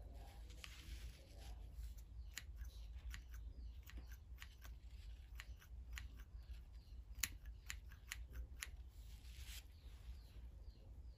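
Small scissors snipping and working jute twine: a string of short, sharp, irregular snips, one much louder about seven seconds in, with soft rustling around a second in and again about nine seconds in.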